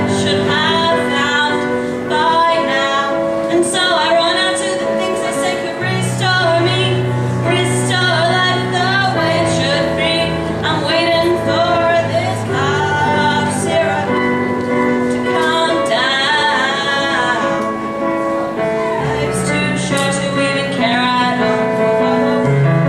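A woman singing a song while accompanying herself on an electronic keyboard, with sustained chords that change every couple of seconds under her voice.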